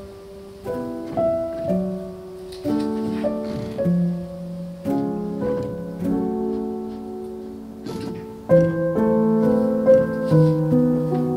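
Background piano music: soft struck chords and melody notes, getting louder about two-thirds of the way through.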